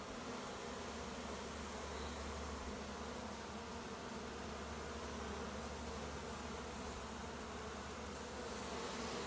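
Honeybee swarm buzzing in a steady, continuous hum as the bees crowd over and walk into a cardboard box.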